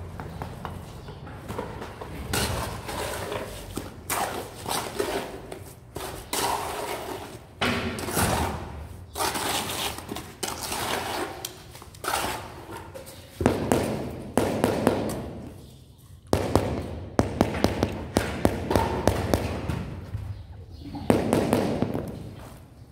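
A steel trowel scraping and scooping wet mortar out of a metal bucket, in an irregular run of scrapes and knocks against the bucket, with dull thuds as the mortar drops onto the floor bed.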